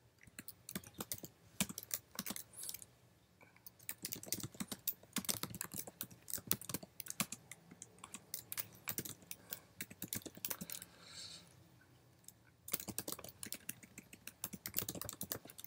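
Computer keyboard typing in quick, irregular runs of keystrokes, with a couple of short pauses.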